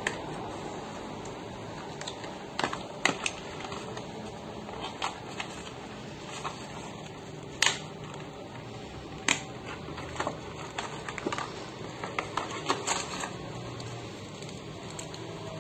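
Packaging being handled: scattered light clicks and crinkles, a few sharper ones, over steady room noise.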